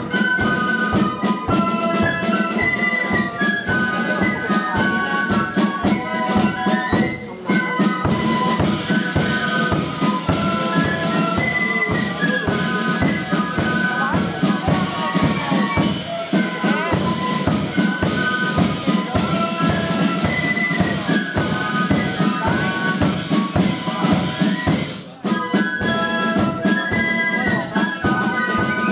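Flute and drum band playing: several flutes in unison carry a high melody over steady side-drum and bass-drum beats, breaking off briefly twice.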